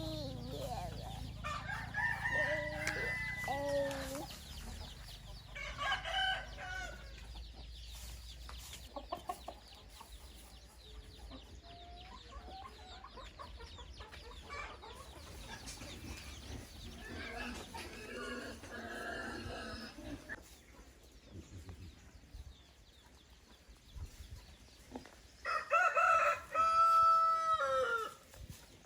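Roosters crowing several times, each crow a drawn-out pitched call, with the loudest crow near the end and quieter calls between.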